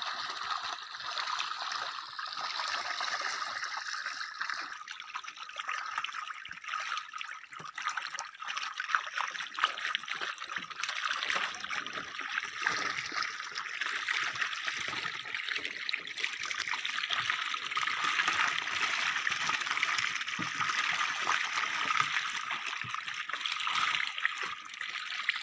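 Water streaming and trickling off the wire mesh of a fish trap as it is hauled up out of the river, with small splashes scattered through.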